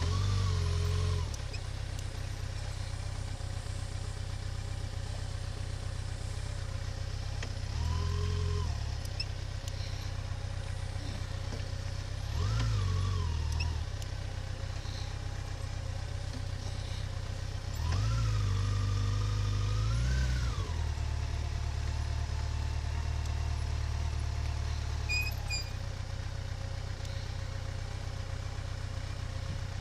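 A motor vehicle's engine running steadily, revving up and easing off four times: briefly at the start, at about 8 and 12 seconds in, and for a longer spell around 18 to 20 seconds in.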